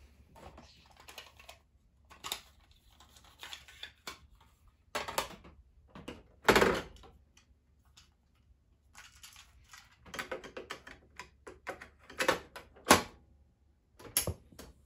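Mechanical clicks and clunks of a Panasonic cassette boombox being worked by hand: the cassette door opened and shut, a tape handled and loaded, and the piano-key transport buttons pressed. The loudest clunks come about six and a half seconds in and again about thirteen seconds in.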